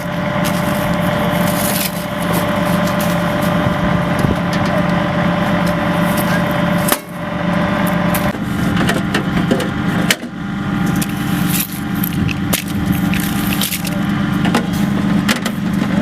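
An armoured vehicle's engine idling steadily, with irregular clicks and knocks over it.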